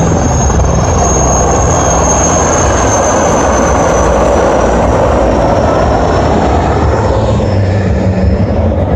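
A helicopter flying low past overhead: a loud, steady rotor and engine rumble, with a thin high turbine whine that slowly falls in pitch.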